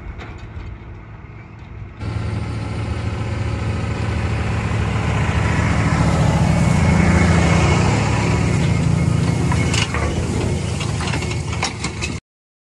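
Claas Axion 850 tractor's six-cylinder diesel engine running steadily under load, pulling a chisel plough through stubble. It is fainter at first, then much louder and closer from about two seconds in, peaking midway, with some sharp crackling near the end before the sound cuts off abruptly.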